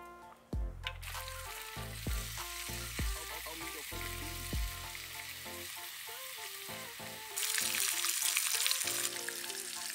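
Bacon strips sizzling in hot oil in a cast-iron skillet over a wood campfire. The sizzle starts about a second in and gets louder about seven seconds in. Background music with a steady beat plays throughout.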